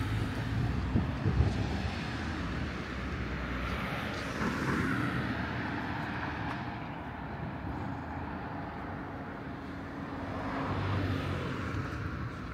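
Street traffic: passing vehicles, a steady rush of engine and tyre noise that swells and fades twice.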